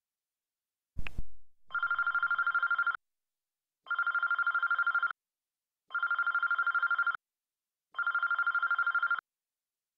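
Telephone ringing with an electronic warbling trill, four rings each about a second and a half long and two seconds apart: a call that nobody answers. A sharp click about a second in.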